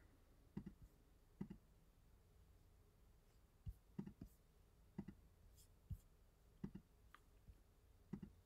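About a dozen faint, irregularly spaced clicks of a computer mouse being used to click through on-screen menus, over quiet room tone.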